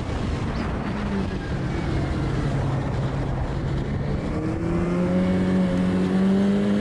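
Snowmobile engine running under heavy wind and track rumble. Its note rises steadily in pitch over the last couple of seconds.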